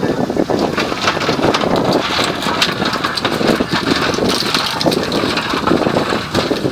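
Working deck of a whelk boat in strong wind: the boat's engine running under wind buffeting the microphone, with a rapid, irregular clatter and knocking as whelk pots are emptied onto the metal sorting tray.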